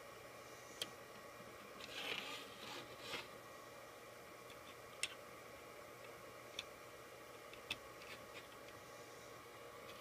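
Faint handling sounds of a plastic hook working rubber bands on a plastic bracelet loom: a short scraping rustle about two seconds in and a few sharp light clicks, over a steady low hum.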